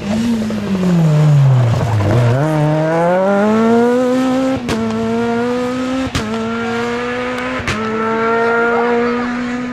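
Rally car engine: the revs fall to a low about two seconds in, then climb as the car accelerates hard away, with three quick gear changes about a second and a half apart, each marked by a sharp crack.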